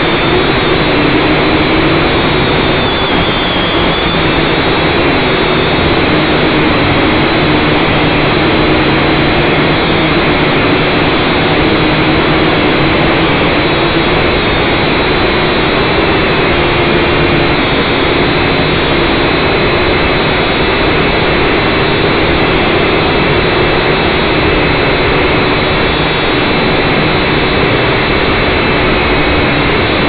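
Syma X5C quadcopter's four small brushed motors and propellers, heard through its own onboard camera: a loud, steady whine and rush whose pitch wavers slightly as the throttle shifts.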